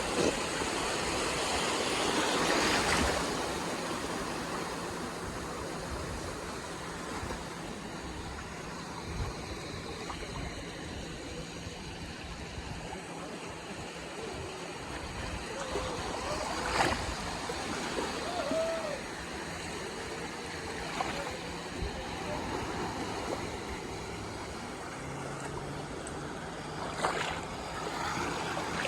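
Sea waves washing onto the shore in a steady rush, swelling loudest a few seconds in, with a few sharp splash-like clicks later on.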